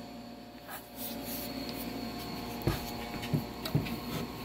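Handling noise from a plunge saw being shifted and turned over on its track and table: light rubbing, then a few dull knocks in the second half, over a steady low room hum.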